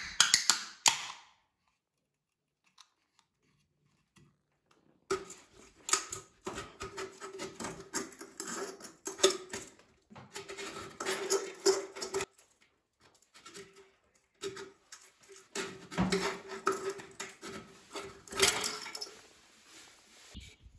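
An aluminium drink can's ring-pull cracked open with a brief hiss. After a pause, a knife sawing and scraping around the can's top rim in uneven strokes for about fifteen seconds, the thin can ringing at one steady pitch under the scraping.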